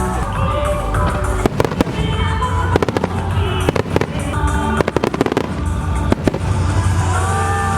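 Aerial fireworks bursting and crackling, with quick runs of sharp bangs through the middle, over loud music playing along with the display.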